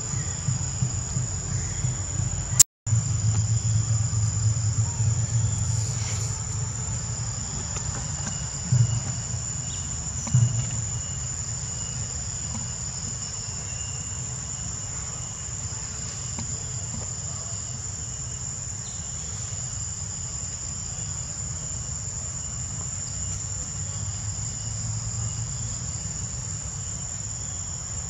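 Insects trilling steadily at a high pitch, with a low rumble underneath that is strongest in the first few seconds.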